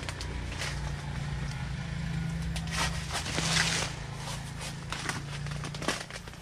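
Footsteps and the crackling rustle of dry banana leaves and leaf litter being trampled and handled, with a louder rustle about halfway through, over a steady low hum.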